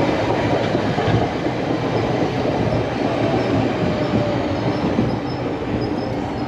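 Chicago CTA Orange Line 'L' train running on the tracks: a steady loud rumble with rail clatter. A faint high wheel squeal comes in during the second half.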